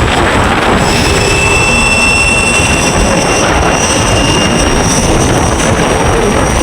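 Ather 450X electric scooter riding along at a steady speed: a loud, steady rush of wind and road noise, with a thin, high electric-motor whine held steady through the middle.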